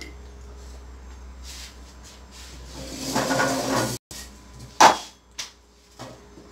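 Kitchenware clatter: one sharp, loud knock about five seconds in, followed by two lighter clicks. Shortly before it comes a brief, noisy rush lasting about a second.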